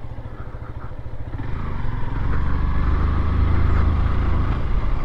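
Motorcycle engine running while riding, with a steady low pulsing, growing louder about a second and a half in.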